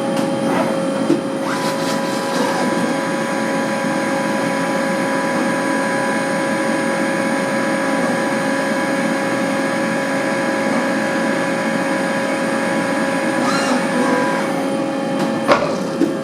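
EMCO Emcoturn 465 CNC lathe running with a steady mechanical hum and whine. A higher whine comes in about a second and a half in and drops out near the end, with a short click around each change.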